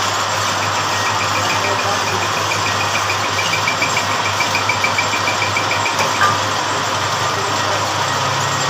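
Metal-working lathe running with a steady motor hum, and a rapid, regular ticking through the first two-thirds. A single sharp click comes about six seconds in.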